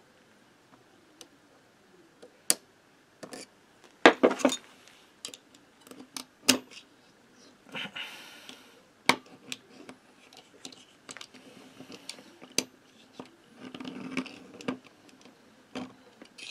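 Scattered metallic clicks, taps and scrapes of a hand tool working a retaining clip onto the steel clutch plate and drum of a Motobécane AV89 moped. The loudest clatter comes about four seconds in, with more short bursts later.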